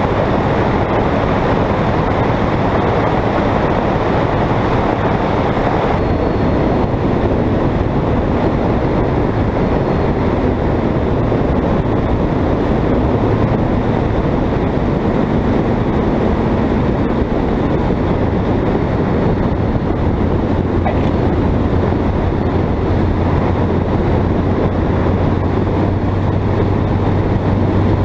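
Light aircraft's piston engine and propeller running steadily, with airflow rushing over the microphone, through final approach and landing rollout. The sound dulls in a step about six seconds in, and a low hum grows stronger near the end.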